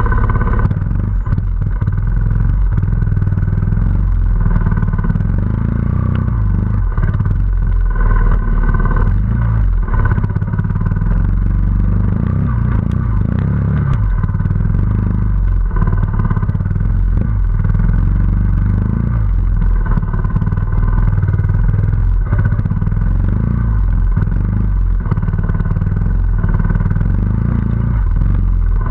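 Trials motorcycle engine running and revving up and down on a rocky climb, heard close up from a camera on the bike, with scattered knocks from the ride over rock.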